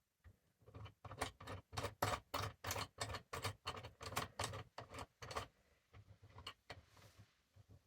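Rapid run of light mechanical clicks, about four a second, as a sight pusher tool is adjusted around a pistol slide, ending in a few scattered clicks.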